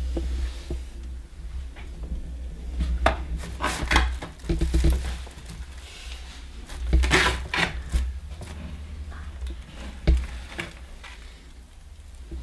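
Kitchen handling noises: a plastic bag rustling and dishes clattering in irregular bursts, loudest about four and seven seconds in, with a sharp knock about ten seconds in, over a low steady hum.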